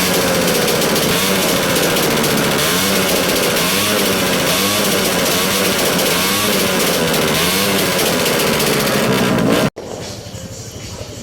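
Loud motorcycle engine being revved over and over, its pitch rising and falling, for a sound check of a loud-piped bike. It cuts off suddenly near the end, leaving a much quieter background.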